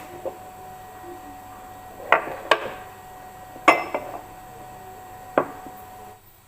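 Several sharp clinks and knocks of ceramic kitchenware being handled and set down on a hard surface, each ringing briefly; the loudest come about two and three and a half seconds in.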